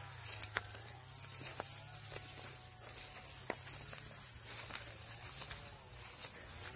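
Footsteps through tall dry grass: stems swish and crackle against the legs with each stride, about once a second, with scattered sharp snaps of dry stalks.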